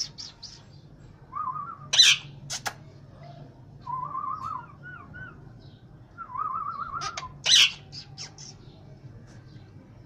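Rose-ringed parakeet giving three short, wavering, warbling calls. Two short, loud, sharp sounds come about two seconds in and again at about seven and a half seconds, with smaller clicks beside them.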